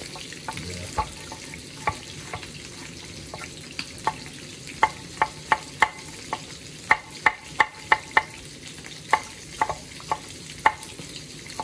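Chef's knife slicing garlic cloves on a wooden cutting board: sharp, irregular taps of the blade on the board, sparse at first and coming quickest, about three a second, in the middle. Under them runs the steady sizzle of food frying in a pot.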